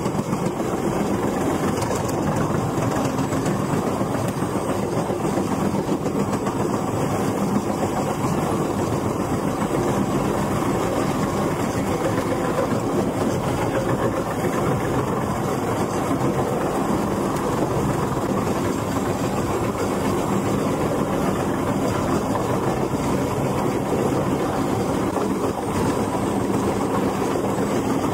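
Heavy diesel forestry machinery running steadily, a dense mechanical din with no pauses or changes in speed.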